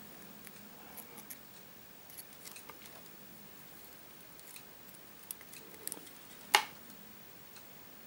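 Faint clicks and handling noise of multimeter test leads and a small USB plug being handled in the fingers, with one sharper click about six and a half seconds in.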